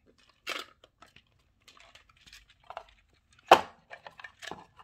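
Speed-cube box and accessories being handled and put away: a brief rustle, scattered light clicks and taps, and one sharp knock about three and a half seconds in.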